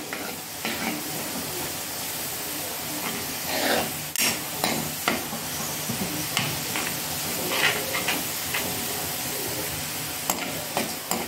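Chopped garlic sizzling in hot desi ghee in a kadhai, a steady frying hiss, with a few short clicks and scrapes of a spoon against the pan as it is stirred. The garlic is being fried to light brown for the tadka.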